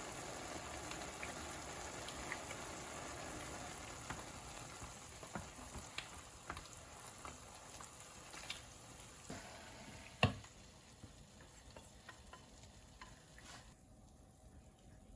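Food sizzling as it fries in a pan, the sizzle fading steadily, with scattered sharp clicks of a utensil against the pan; one click about ten seconds in is the loudest.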